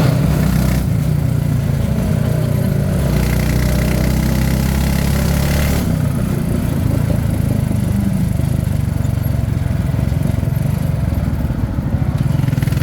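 Jeepney's diesel engine running steadily; its low engine note changes about six seconds in.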